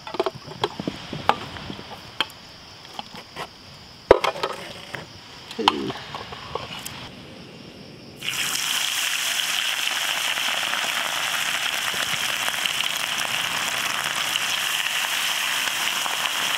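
Light clinks and knocks of cooking utensils on a pan, then, about eight seconds in, a steady sizzle starts suddenly as food goes into hot oil and keeps frying.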